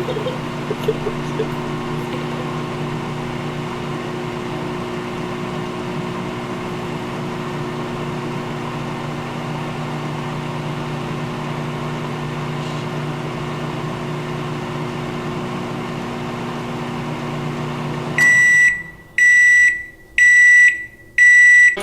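Microwave oven running with a steady hum, then stopping and beeping four times near the end to signal that the heating cycle is done.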